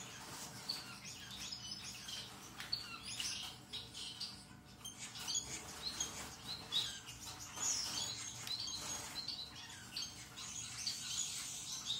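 Gouldian finches chirping in an aviary: many short, high chirps from several birds, overlapping.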